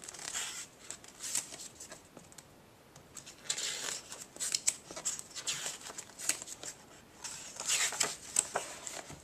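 Pages of a picture book being turned by hand: paper rustling and flapping in short bursts, with a lull of about a second early on before more page-turning.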